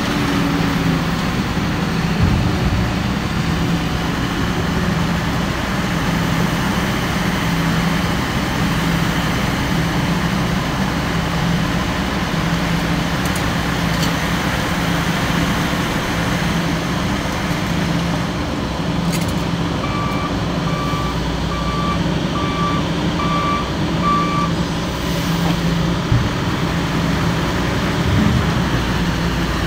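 Heavy diesel engine of construction equipment running steadily, with a low pulsing drone. About two-thirds of the way through, a reversing alarm beeps about six times at an even pace, then stops.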